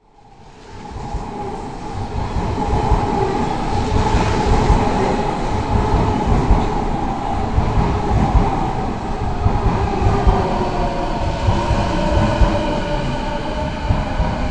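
Train running on rails: a heavy rumble with frequent wheel knocks and a wavering steady whine over it, swelling in over the first two seconds.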